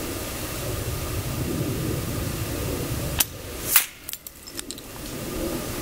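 Long-range air rifle shot at a golf ball 250 yards away: two sharp cracks about half a second apart over a steady rumble and hiss, the second louder, then a few faint clicks. The shot hits the ball.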